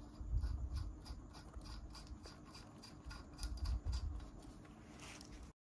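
Light, rapid metallic clicking with handling knocks as a 14 mm nut is worked by hand onto the crankshaft thread at the centre of a scooter engine's magneto rotor. The sound cuts off abruptly near the end.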